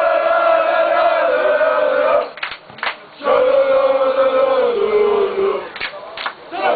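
Football supporters' crowd chanting in unison: two long held phrases, each sagging slightly in pitch and each followed by two sharp beats.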